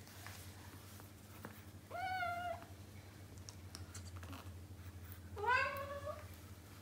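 A cat meowing twice: a short call about two seconds in, then a louder call near the end that rises in pitch as it starts.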